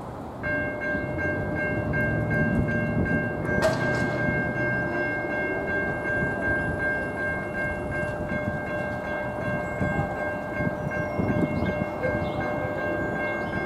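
Electronic railroad grade-crossing bell starting about half a second in and ringing steadily as a train approaches, with one sharp knock a few seconds in.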